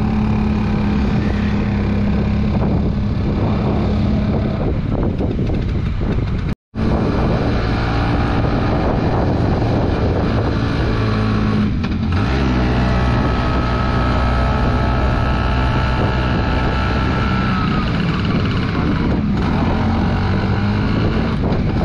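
Bajaj Chetak scooter's engine running steadily while riding, mixed with wind noise on the microphone. The sound drops out completely for a moment about six and a half seconds in.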